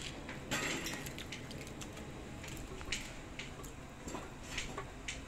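Clatter of metal cooking utensils: scattered clinks and knocks over a steady hiss, with a brief rush of noise about half a second in.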